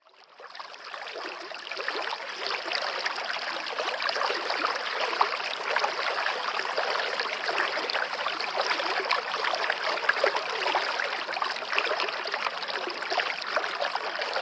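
Steady rushing, splashing water, fading in over the first two seconds and then holding even.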